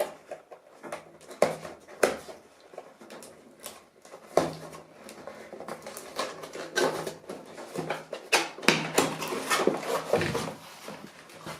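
Cardboard box and packaging being handled as a keyboard is taken out: irregular knocks, scrapes and rustles, busier in the second half.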